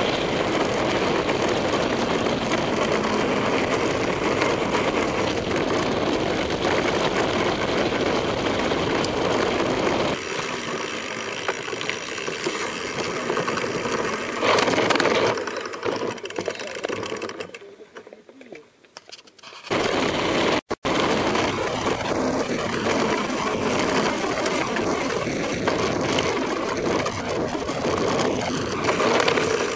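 Mountain bike rolling fast down a gravel track, heard from a helmet camera: knobby tyres crunching over loose stones and the bike rattling. It sinks low for a couple of seconds a bit past halfway, then breaks off for an instant.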